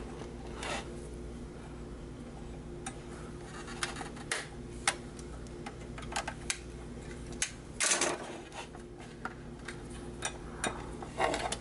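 Small clicks and taps of fingers and fingernails on a 1/24-scale diecast model car as its trunk lid is worked open, over a steady low hum. A brief louder rustle about eight seconds in.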